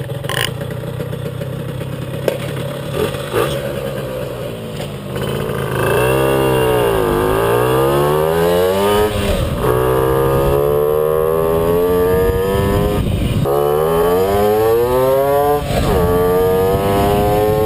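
Puch Maxi moped's small two-stroke engine on a test ride, heard from the rider's seat. For the first few seconds it runs steadily at a lower level; then it gets louder, and its pitch rises again and again as it pulls away, with short dips in between. It pulls cleanly with no stuttering, its loose spark plug cap contact now fixed.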